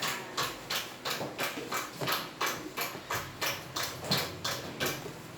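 Rapid, even tapping or knocking, about four strokes a second, that stops near the end.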